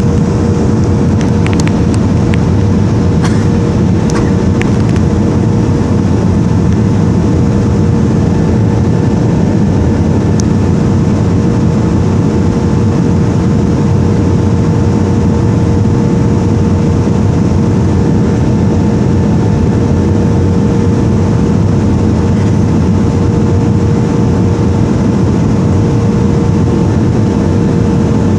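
Boeing 737-500 in flight with its CFM56 turbofans running: a loud, steady roar of engine and airflow, with a constant droning hum that does not change. A few faint clicks come in the first few seconds.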